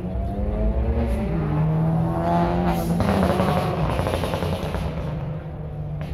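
A car engine running close by, revved up briefly between about two and three and a half seconds in, then settling back to a steady run.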